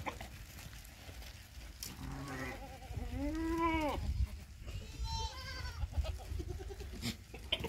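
Sirohi goats bleating, several calls in turn. The longest and loudest comes about three seconds in and arches up and then down in pitch. A higher-pitched bleat follows about five seconds in.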